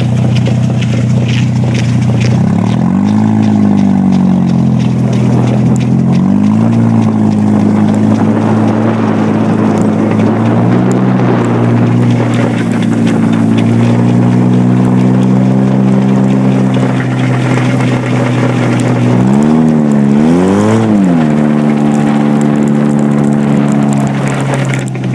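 Car engine running loud and steady, its revs rising and falling several times: about 3, 6 and 11 seconds in, and twice in quick succession near the 20-second mark.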